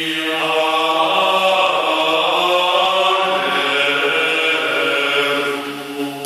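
Male choir singing a cappella in a chant style, with held chords that change slowly; the singing fades away near the end.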